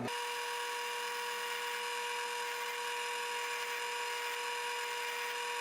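Power wire wheel running against a rusty steel wrench, brushing off the last of the rust: a steady hiss with a steady whine over it.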